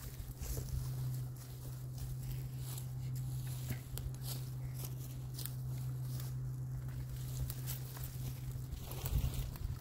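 Dry brush and leaf litter crackling and rustling, with scattered sharp snaps and clicks, as branches are cut with hand loppers and pulled from a thicket. A steady low hum runs underneath.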